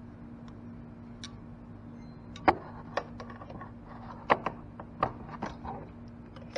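Metal hand tools clicking and clinking against the valve rocker adjuster of a GY6 scooter engine as its lock nut is loosened: scattered sharp clicks, the loudest about two and a half seconds in, over a steady low hum.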